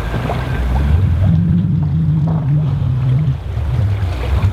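Engine of a passing container ship, a low steady drone that drops slightly in pitch about halfway through.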